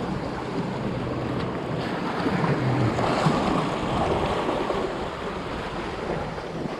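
Wind buffeting the microphone over the wash of sea waves, growing louder through the middle.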